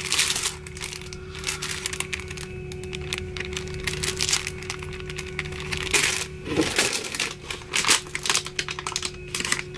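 Thin plastic packaging bags crinkling and crackling as they are handled, in irregular bursts, loudest about six seconds in.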